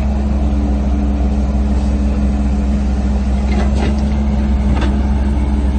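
Heavy diesel engines of earthmoving machinery running steadily at a constant low hum, with no change in speed.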